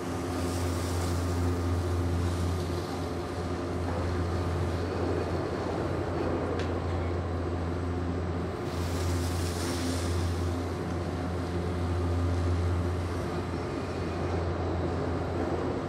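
Steady low machine hum with several fixed tones above it, from the gondola lift's top-station machinery; a higher hiss swells twice, near the start and about nine seconds in.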